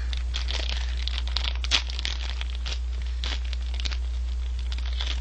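Plastic ice-bar wrapper being torn open and peeled back, crinkling in quick irregular crackles, over a steady low electrical hum.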